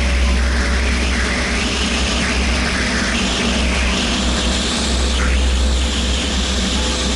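Zenair 701 light aircraft's engine and propeller running steadily in flight, a low drone under a rush of wind over the wing-mounted camera that swells and fades every second or so.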